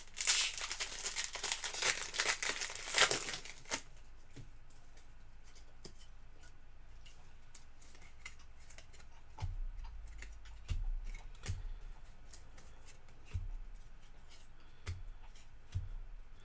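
A trading card pack wrapper being torn open and crinkled for about the first four seconds, followed by quieter handling of the cards: faint ticks and a few soft low taps.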